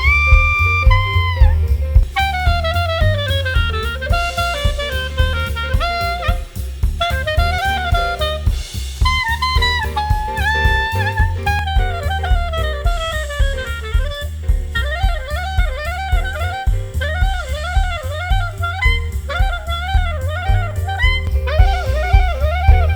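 Swing-style jazz instrumental: a saxophone plays a quick, running melody over a drum kit and a heavy bass line.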